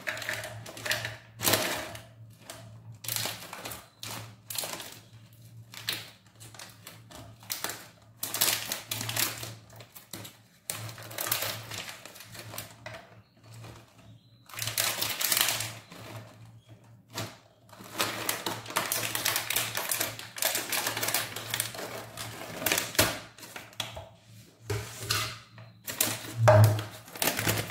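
Raisins being shaken out of a plastic bag into a cup on a kitchen scale: the bag rustles and crinkles and the dried fruit drops in, in irregular bursts with short pauses between.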